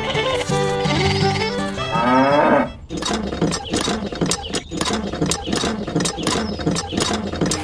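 A cow mooing over background music with a quick, even beat.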